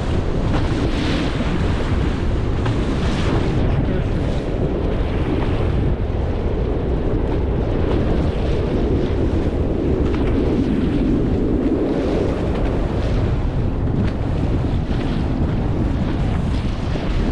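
Wind buffeting the microphone over the steady rush of sea water around a boat under way.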